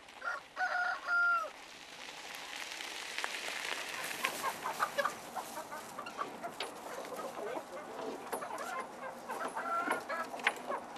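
A rooster crows once near the start. After that, chickens cluck and call over a rustling, scraping background.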